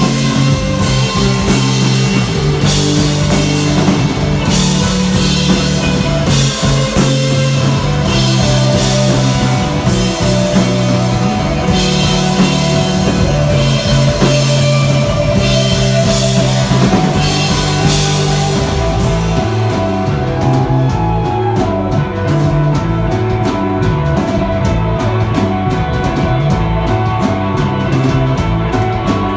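Live desert rock band playing an instrumental passage on electric guitar, bass guitar and drum kit, with steady bass notes underneath. The drums ride on crashing cymbals until about two-thirds of the way through, then switch to a tight, regular ticking.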